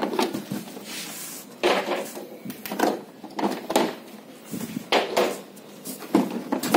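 Irregular knocks, clacks and short scrapes, about eight in all, from hard plastic wardrobe panels and the cardboard box being handled during unpacking.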